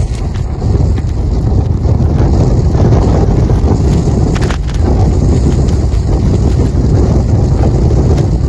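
Storm-force wind gusting hard across open snow and buffeting the microphone with a loud, low rumble. One brief sharp snap cuts through about halfway in.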